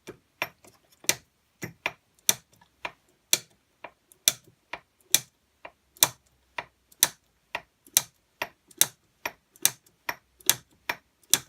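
Auto-advance feed ratchet of a Perfecto hand shaper clicking as the handle is worked back and forth: a steady run of sharp metallic clicks, roughly two a second, some louder than others.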